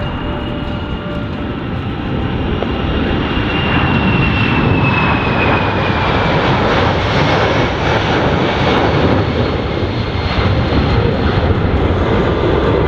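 Boeing C-17A Globemaster III's four turbofan engines at high power as it climbs steeply away after takeoff: a loud, rough jet noise with a high fan whine that slides down in pitch partway through.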